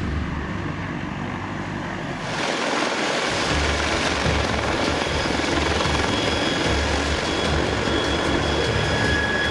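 Sikorsky CH-53 heavy-lift helicopter running on the ground while taxiing: turbine whine over the low pulsing of the rotors. The sound becomes fuller and brighter about two seconds in.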